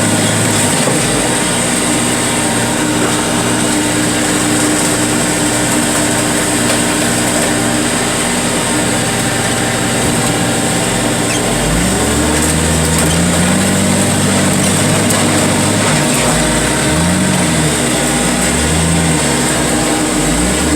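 Heavy machinery engine running steadily, then from about twelve seconds in revving up and down over and over as the machine works under load.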